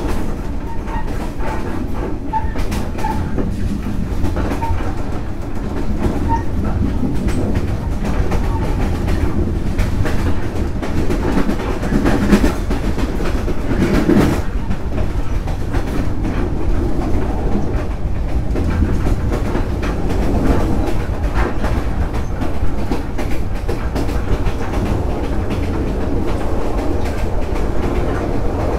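Vietnam Railways SE19 passenger train running along the track, heard from on board the carriage: a steady rumble with the clickety-clack of the wheels passing over rail joints.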